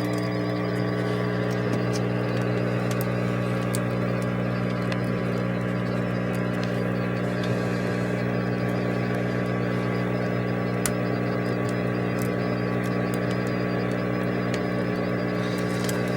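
A steady low hum with several pitches stacked over it, unchanging throughout, with occasional faint clicks.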